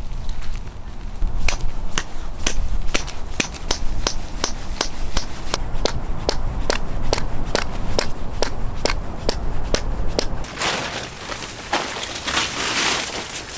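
A hammer driving a tent peg into the ground, in rapid, even strikes about three a second for some nine seconds. Near the end, the rustle of a groundsheet being spread out.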